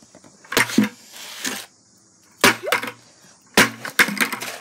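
About four sharp knocks and thuds, spaced roughly a second apart: a bucket being banged against a cardboard box, which only creases the box.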